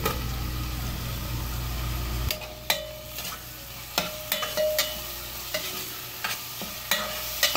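Chopped onion sizzling in hot coconut oil in a steel pressure cooker, stirred with a steel spoon that clinks and scrapes against the pot in sharp ticks. A low hum runs for the first two seconds, then cuts off.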